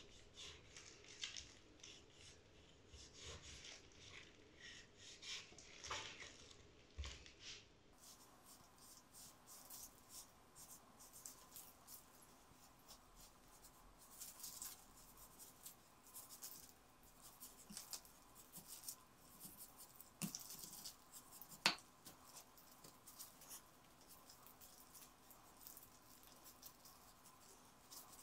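Quiet, soft cutting sounds from a chef's knife slicing raw beef on a wooden cutting board, with small clicks and taps of the blade and the gloved hands handling the meat. One sharper tap stands out about three-quarters of the way through.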